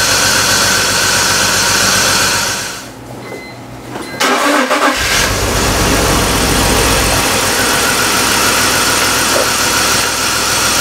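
BMW 325xi's 2.5-litre inline-six running with a compression gauge screwed into one spark-plug hole, then shut off. About a second and a half later it is cranked and restarted: a sudden start, a heavier rumble for a couple of seconds as it catches, then it settles into a steady idle.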